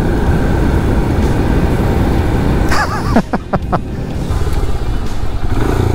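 Royal Enfield Himalayan's 411 cc single-cylinder engine running at road speed under heavy wind rush on the helmet microphone. A short sound with sliding pitch cuts through about three seconds in.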